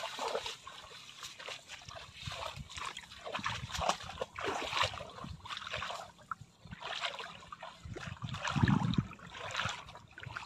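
Footsteps wading through shallow water in a flooded rice paddy: irregular sloshing and splashing with each step, with louder, deeper sloshes about three-quarters of the way through.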